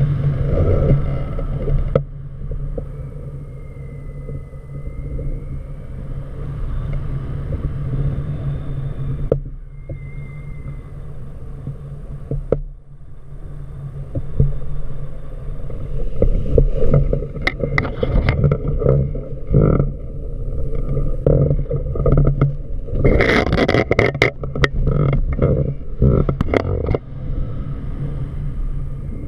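Wind rushing over the camera microphone in paraglider flight: a steady low rumble, then a busy stretch of sharp crackles and pops from about 17 to 27 seconds in.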